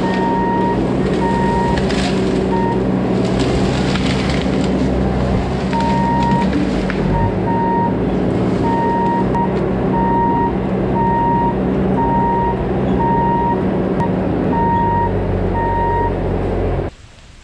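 Bobcat T650 compact track loader's diesel engine running steadily, its backup alarm beeping at an even pace as it reverses. The beeping pauses for a few seconds early on, and everything cuts off suddenly near the end.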